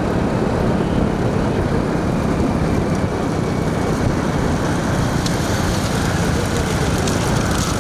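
Steady rush of wind on the microphone with motorcycle engines running, heard from a moving motorcycle.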